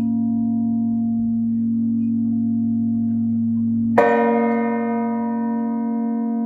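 Church bell from a six-bell Maltese peal: a deep, steady hum carries on, then a fresh strike about four seconds in brings a bright clang that slowly dies away into the hum.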